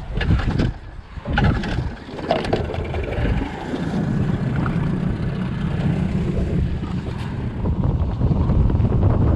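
A few knocks and clunks, then a small boat's outboard motor running steadily as the boat gets underway, with wind buffeting the microphone and getting louder near the end.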